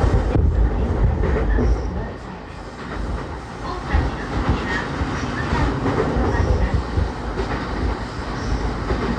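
Cabin running sound of a JR East E231-1000 series commuter train's motor car, with its original traction equipment, moving along the line. Wheels rumble and clack over the rails, easing off a little about two seconds in.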